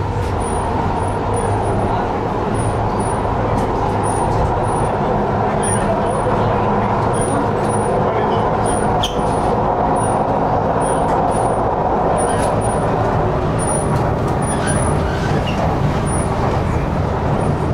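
Interior of a metro train running between stations: the steady rumble and hum of the moving carriage, with passengers' voices murmuring underneath.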